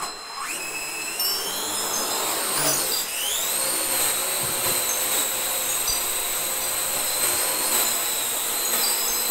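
Quadcopter drone's electric rotors spinning up with a rising whine, dipping and climbing again about three seconds in, then holding a steady high-pitched buzzing whine.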